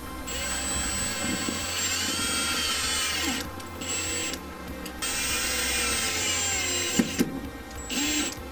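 Power drill with a driver bit driving screws through side-skirt mounting brackets into a car's body, running in spurts: two runs of two to three seconds each and a short burst near the end.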